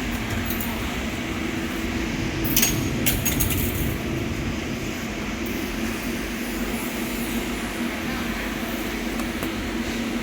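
TIG welder running on stainless steel during a filling pass: a steady electrical hum and hiss. A few sharp metallic clinks come about two and a half to three and a half seconds in.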